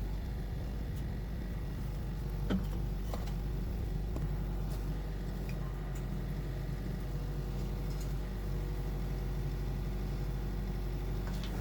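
An engine running steadily with a low, even hum, with a few faint clicks and knocks over it.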